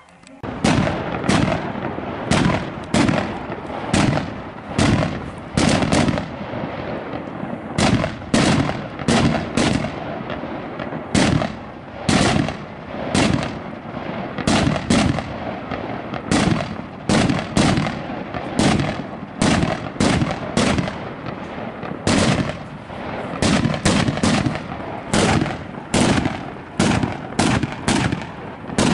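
A heap of cohetes (Mexican firework rockets) going off together. Sharp bangs, about two a second, ring out over a continuous crackle and hiss of burning powder, starting about half a second in.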